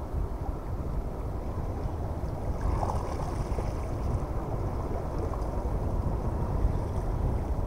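Wind buffeting the microphone: a steady low rumble with no clear pitch.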